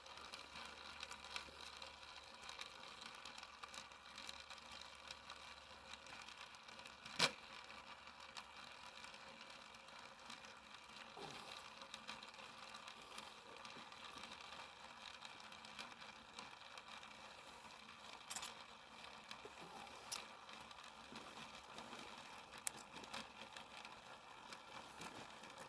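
Faint ticking and crackling of a small fire burning in a Kelly Kettle's fire base, with a sharp click about seven seconds in and a few more later on.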